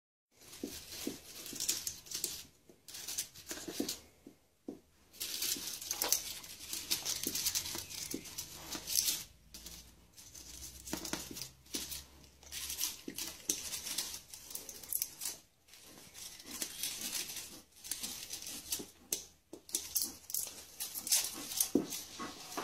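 African grey parrot tearing and crinkling the dry woven strips of a shredding toy with its beak, in irregular bursts of rustling and ripping with short pauses between.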